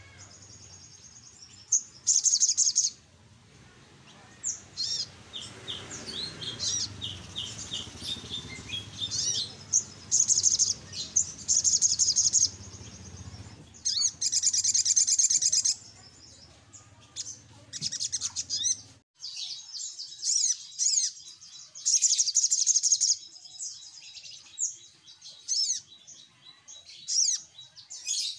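Sunbird (sogok ontong) giving bursts of rapid, high-pitched chirps and trills, repeated again and again with short pauses between.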